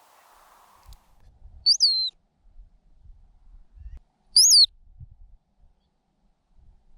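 Ground squirrel giving two short, high alarm whistles about two and a half seconds apart, each rising sharply and then falling away. This short whistle is the frightened ground squirrel's danger signal.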